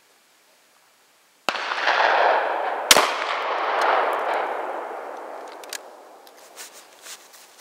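A single shotgun shot: a .410 shell fired through a Savage Four Tenner adapter from the bottom barrel of a Baikal IZH-27 20-gauge over-under. The report breaks in suddenly about a second and a half in and rolls away in a long echo that fades over several seconds, with a second sharp crack about a second and a half after the first.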